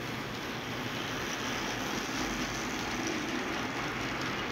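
HO-scale model train running past on the layout's track, a steady running noise from the locomotive and cars on the rails that grows slightly louder about two seconds in.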